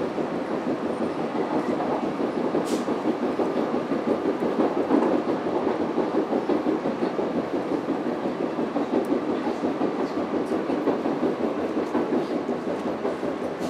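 Steady rumble of a moving train heard from inside the passenger carriage, with a fast fine rattle and one light click about three seconds in.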